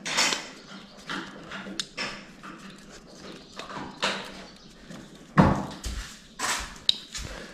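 Hand screwdriver working the terminal screws of a light switch: irregular small clicks, scrapes and knocks of metal on plastic, with a few louder knocks in the second half.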